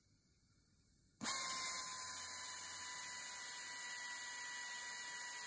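Die grinder with a burr starting about a second in and running steadily, a hiss with a steady whine, as it grinds out the intake port in the cast-iron side housing of a Mazda RX-7 13B rotary engine.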